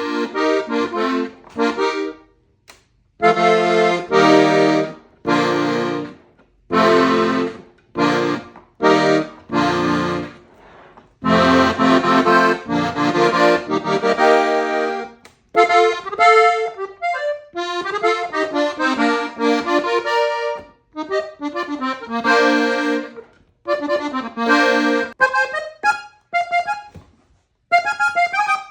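New Gabbanelli accordion being played, tried out for its sound. It plays held chords with low bass notes at first, then quicker melodic runs from about halfway through.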